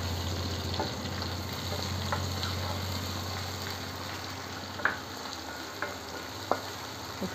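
Chopped onions sizzling in hot sesame oil in a nonstick frying pan while being stirred with a wooden spatula, with a few sharp clicks of the spatula against the pan in the second half.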